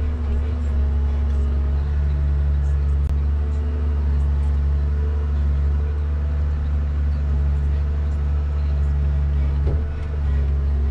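Komatsu 875 forwarder's diesel engine running steadily under crane hydraulic load, heard from inside the cab while the crane loads logs. The low drone holds throughout; its pitch lines step up about a second and a half in and there is a brief gliding whine near the end.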